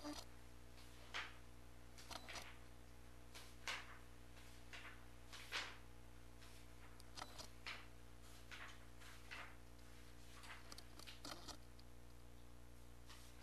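Near silence: low room hum with faint, scattered short clicks and rustles.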